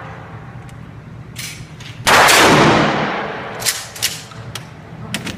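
A single gunshot about two seconds in, with a long echoing tail in an indoor shooting range, followed by a few light sharp clicks of the gun being handled.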